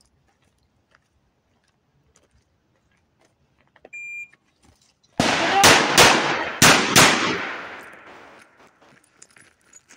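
A shot timer beeps once. About 1.7 seconds later a Rossi RP63 .357 Magnum revolver fires four shots in two quick pairs, about a third of a second apart within each pair and about 0.65 seconds between the pairs. The reports ring and echo off as they die away.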